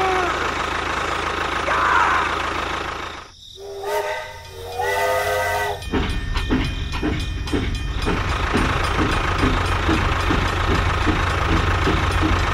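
A toy tractor's small motor hums steadily. Then, about four seconds in, a toy steam locomotive's electronic whistle sounds twice, followed by its electronic chugging at about three chuffs a second.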